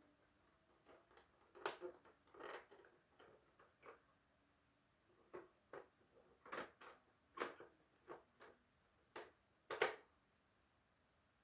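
Irregular light clicks and knocks, about a dozen, of parts being handled. The sharpest come early and again near the end.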